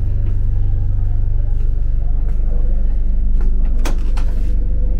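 Steady low rumble of a stationary train's idling diesel engines, with a few faint clicks over it.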